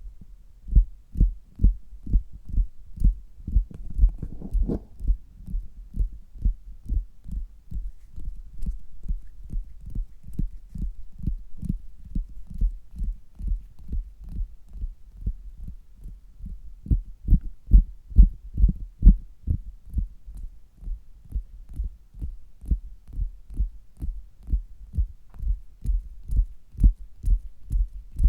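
Fingers tapping on a stomach, heard through a stethoscope: steady dull thumps, about three a second, with a run of louder taps a little past the middle.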